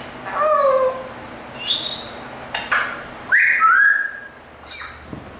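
African grey parrot whistling and calling in short bursts: a falling whistle, a few brief noisy calls, and a loud two-part whistle about three and a half seconds in.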